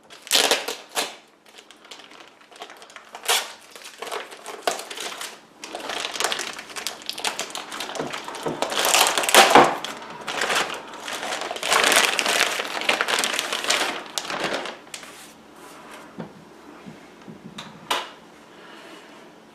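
Packaging rustling and crinkling in bursts as the unit is unwrapped and lifted out of its packing, loudest about halfway through, with a single sharp click near the end.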